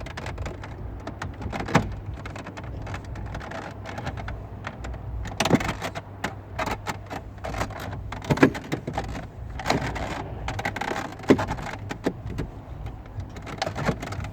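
Irregular plastic clicks, knocks and rattles of car dash trim and clips being pushed and worked into place, over a low steady hum. The clips don't seat.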